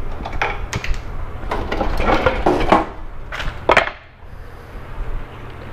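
Knocks, scrapes and rustles of painted plywood solar-oven parts being handled and laid on a plastic cutting board: an irregular run of knocks that dies down about four seconds in.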